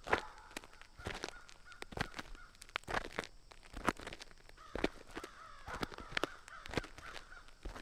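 Crows cawing, a series of short harsh calls at irregular intervals.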